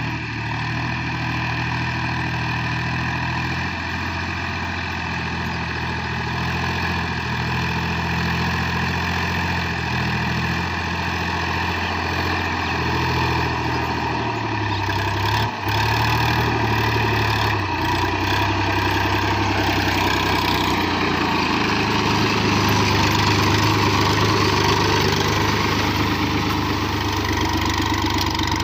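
Massey Ferguson 7250 DI tractor's three-cylinder diesel engine running steadily under load as it pulls a tine cultivator through soil. There is a brief break about halfway through, after which the engine is louder and closer.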